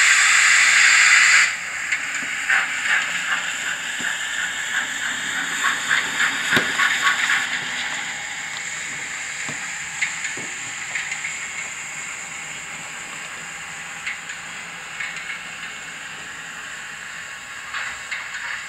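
HO-scale Victorian Railways J class steam locomotive model with a DCC sound decoder, its speaker playing a loud steam hiss that stops suddenly about a second and a half in. Rhythmic steam chuffs and mechanical clanking follow as the model pulls away, growing fainter as it runs off.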